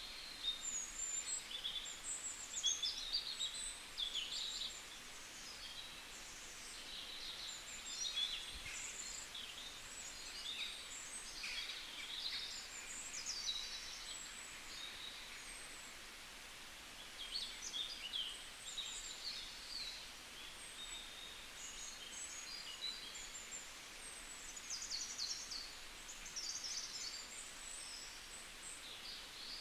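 Birds chirping and singing, many short high calls overlapping one another, over a faint steady hiss.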